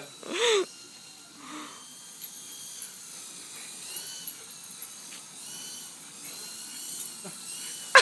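Faint whine of a small toy remote-control helicopter's electric motor, its pitch rising and falling again and again as it flies. A short loud shout comes just at the start.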